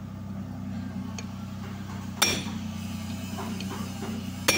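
Two sharp, ringing metal-on-metal hammer blows about two seconds apart: a hammer striking a steel bar set on the end of a differential's pinion shaft to drive the pinion gear out of the carrier. A steady low hum runs underneath.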